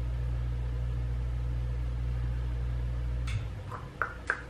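A steady low hum, the kind an appliance, fan or air conditioner gives, that cuts off suddenly about three and a half seconds in, followed by a few soft clicks.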